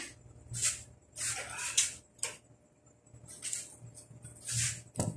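A string of short rustling and scraping handling noises, about six in five seconds, over a faint steady low hum.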